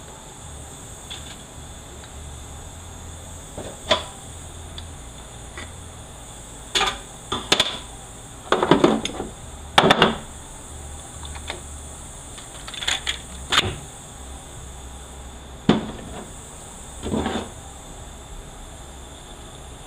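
Scattered clinks and knocks of metal transmission parts and hand tools being handled during teardown of a 4L80E automatic transmission, busiest around the middle, over a steady background hum.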